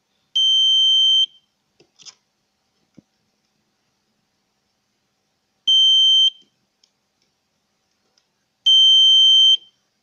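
Small round buzzer on a breadboard beeping three times with one steady high tone, each beep lasting as long as a push-button switch is held down: about a second, then a shorter half-second beep, then about a second again. A few faint clicks come between the beeps.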